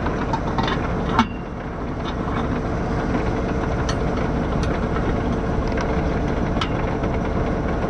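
A tractor engine running steadily at idle, with scattered sharp metallic clicks and clanks and one louder knock about a second in.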